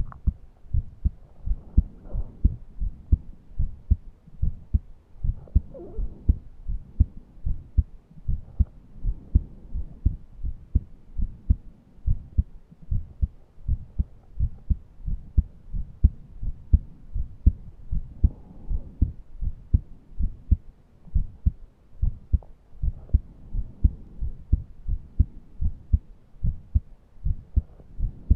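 A person's heartbeat heard through the chest: a regular run of deep double beats. A few faint, shallow wheezing breaths come in between, from someone who cannot breathe deeply.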